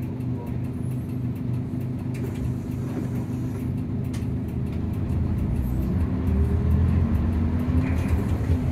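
Nissan Diesel KC-UA460NSN bus's diesel engine heard from inside the cabin while under way. It runs steadily at first, then pulls harder from about halfway, with its pitch slowly rising as it gets louder.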